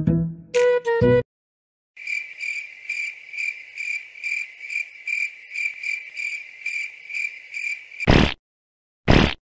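Crickets chirping in a steady, even rhythm of about two to three chirps a second. After a few plucked string notes at the start, it cuts off abruptly, followed by two short loud noises.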